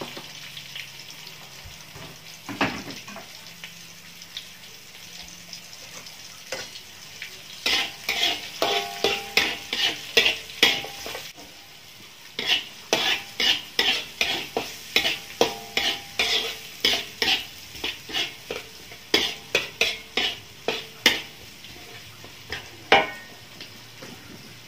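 Sliced shallots, garlic and chili sizzling in oil in a wok. From about a third of the way in, a metal spatula scrapes and stirs them against the wok in quick repeated strokes, about two a second, in several runs with short pauses.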